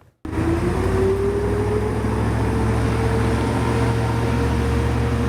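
Ice resurfacer running on the rink, its motor whine rising in pitch over the first couple of seconds and then holding steady above a low, even hum.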